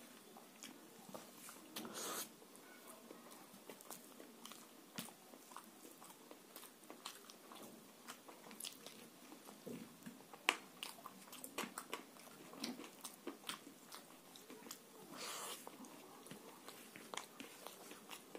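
Close-miked eating sounds of rice and fish curry eaten by hand: wet chewing and lip-smacking made of many small sharp clicks, with two brief louder rustling smears, about two seconds in and about fifteen seconds in.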